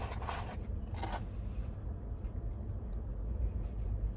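A steady low rumble with two brief rustling sounds, one at the start and one about a second in.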